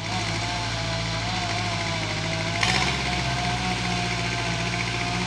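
Engine-driven machinery running steadily: a low engine hum under a wavering whine, with a short louder rush of noise about two and a half seconds in.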